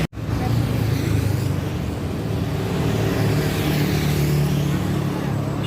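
Tour bus diesel engine running close by, a steady low drone whose pitch drifts slightly up and down.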